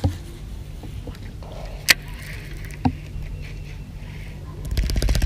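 Two sharp clicks about a second apart, then near the end a baitcasting reel being cranked, a fast, even rattling that carries on.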